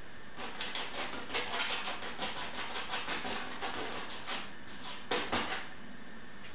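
Metal palette knife scraping and spreading thick paint across a canvas in quick strokes, about three to four a second. After a short pause near the end come a few louder strokes.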